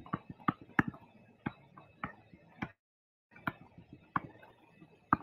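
Stylus tapping on a tablet screen while equations are written by hand: a run of irregular sharp ticks, several a second, cutting out completely for about half a second near the middle.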